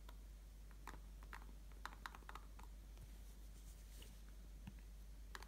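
Near silence: faint room tone with a few scattered light clicks.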